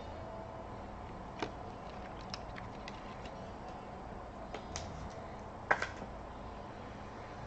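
Trading cards and plastic card holders being handled: a few light clicks and taps, the loudest a quick double click about three-quarters of the way through, over a faint steady background hum.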